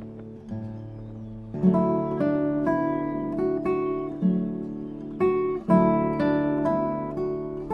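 Background music: acoustic guitar playing chords, each strum ringing out and fading before the next.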